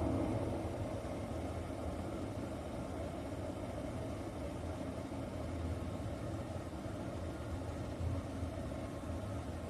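Chefman glass electric kettle heating water, giving a steady low rumble.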